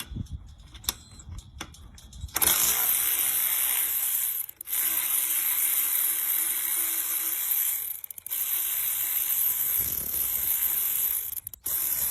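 A few light handling clicks, then a KIMO 12-volt cordless electric ratchet wrench running freely, its motor and ratchet head whirring loudly. It stops briefly three times and starts straight up again, spinning a socket on its small-socket adapter.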